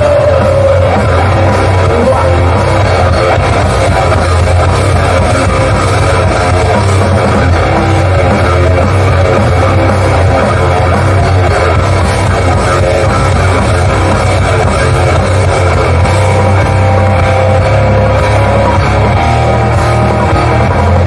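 Live hardcore band playing loud, with distorted electric guitar, bass and drum kit over a PA; a guitar note slides down in pitch at the start.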